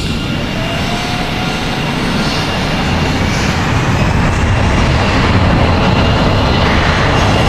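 Jet aircraft taxiing on ice: a steady engine rumble with the heavy rolling of its landing-gear wheels through snow, growing a little louder about four seconds in. A faint whine rises briefly near the start.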